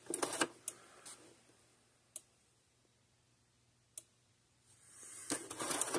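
Gallagher S100 solar fence energizer: its selector knob is turned with a few quick clicks. The unit then ticks with two single sharp clicks about two seconds apart as it pulses. Soft handling noise follows near the end.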